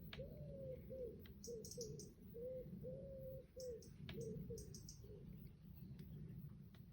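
Doves cooing faintly: a run of short, arched hoots at one low, steady pitch, about two a second, over a low background rumble, with a few faint high chirps.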